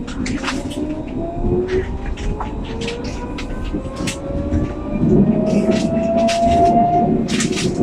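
Alstom Citadis 302 tram accelerating, heard from the driver's cab: the traction motors give a slowly rising whine over the rumble of the wheels on the rails, with many clicks and rattles. It grows louder about five seconds in.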